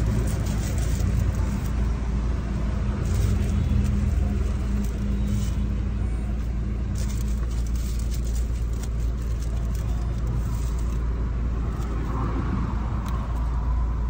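Car engine idling, a steady low hum heard from inside the car, with some light crackling and rustling in the middle stretch.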